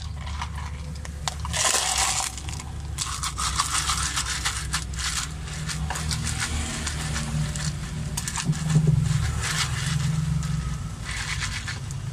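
Ice crackling and rattling in a plastic cup of iced drink as the cup is handled, with irregular crunchy clatters. A low droning hum runs underneath and swells about nine seconds in.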